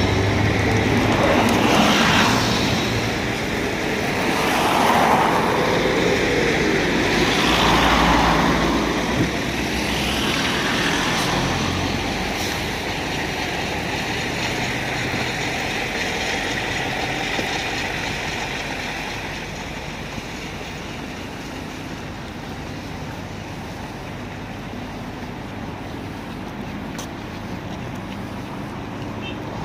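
Road traffic: cars and trucks passing close by one after another, each pass rising and fading. From about the middle on this settles into a steadier, quieter traffic noise.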